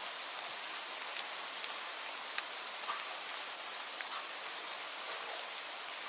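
Small rocky forest stream splashing and trickling over stones: a steady bright hiss with scattered small drip-like ticks.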